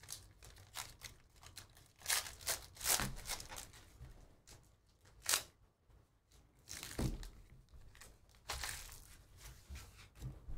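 Foil wrapper of a Panini Donruss basketball hobby pack being torn open and crinkled in several short bursts, then the cards inside being handled and slid against each other.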